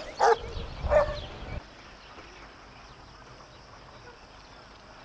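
Dogs barking, two sharp barks in the first second or so; then the sound cuts off suddenly, leaving only a faint steady hiss.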